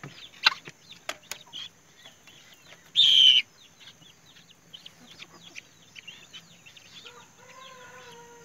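Day-old guinea fowl keets peeping constantly in quick high chirps. A short, loud, harsh burst comes about three seconds in, and a long steady call starts about seven seconds in, dropping slightly at its end.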